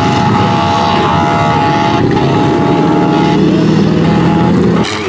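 Demolition derby car engines running loud and steady, with a held high tone over them for a few seconds. The sound drops abruptly near the end.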